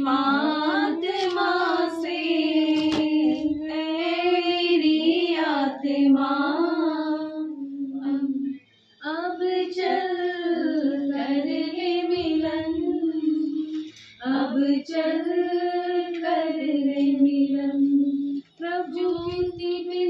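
A woman singing a devotional bhajan with no instruments heard, in long held phrases with three short pauses for breath.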